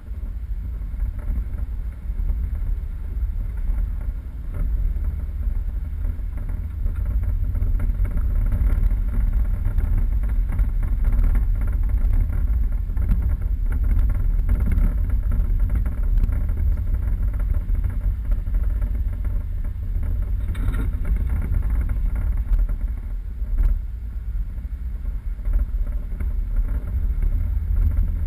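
4x4 vehicle driving off-road: a steady low rumble of engine and tyres, with small knocks and rattles.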